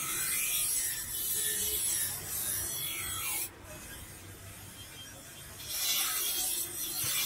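Steel knife blade ground on a bench grinder's grey abrasive wheel: a loud hissing grind, a break of about two seconds with only the grinder motor running, then grinding again about six seconds in.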